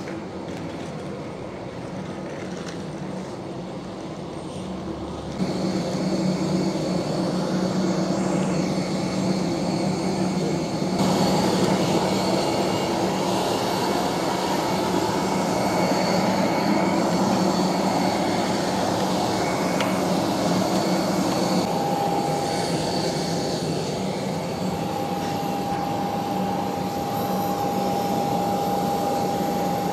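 Jet aircraft running on an airport apron: a steady whine over a low hum, growing louder about five seconds in and again at eleven seconds, with a high held tone joining in after about twenty seconds.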